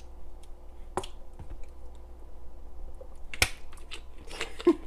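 Plastic lemon juice bottle being handled and its cap put back on: a few sharp clicks and taps, the sharpest about three and a half seconds in, with a cluster of smaller clicks near the end.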